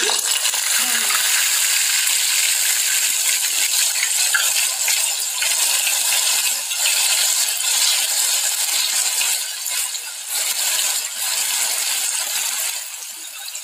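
Urad dal vada batter sizzling and crackling as it deep-fries in hot oil in a kadhai. The sizzle starts suddenly as the vada goes into the oil and eases slightly near the end.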